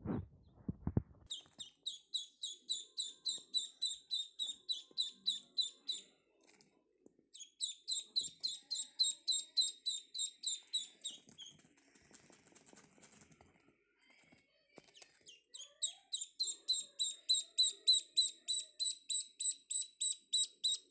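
Ducklings peeping: rapid high peeps, about four or five a second, in three long runs with short pauses between. There are a few low knocks near the start.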